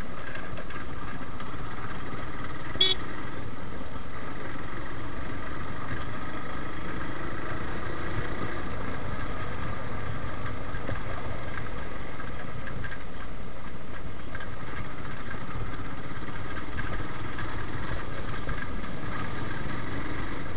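Suzuki Gixxer single-cylinder motorcycle engine running steadily at low speed over a rough dirt lane, with a steady mix of engine and road noise. A short horn toot about three seconds in.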